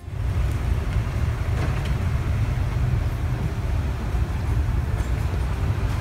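Wind buffeting the microphone: a steady, rough low rumble, with no peacock call heard.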